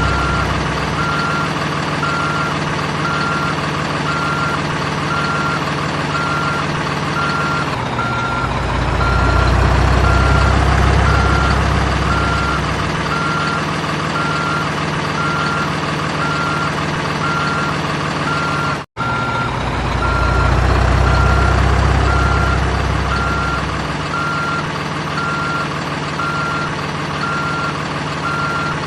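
Sound effects of a toy RC construction vehicle: a steady, evenly repeating reversing beep over a continuous engine hum. The low engine hum swells louder twice, about 8 and 20 seconds in. Everything cuts out for an instant about 19 seconds in.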